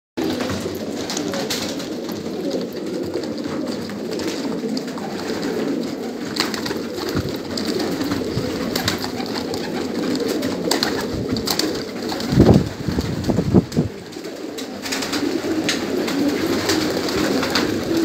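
Many domestic pigeons cooing together in a continuous overlapping murmur, with scattered short clicks. A few louder bursts come about twelve to fourteen seconds in.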